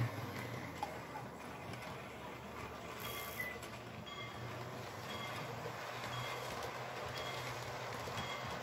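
HO-scale model Glacier Express train running on its track: the locomotive's motor hums steadily as it hauls the coaches round a curve, with faint regular ticks about every two-thirds of a second.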